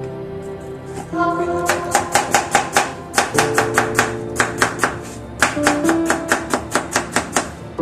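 Kitchen knife chopping jicama into strips on a wooden cutting board: quick knocks of the blade on the board, about five a second, starting about two seconds in with two short pauses, over background music.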